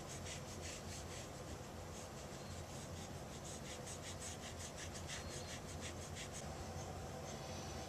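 Cotton swab rubbing brown oil paint onto a photo print in quick back-and-forth strokes, several a second, stopping about six seconds in.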